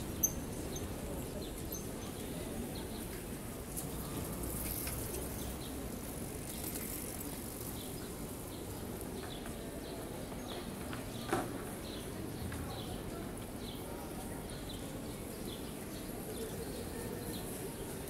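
Open-air ambience of a pedestrian city square: a steady low murmur of distant voices and city background. One sharp knock stands out about two-thirds of the way through, with faint light ticks in the second half.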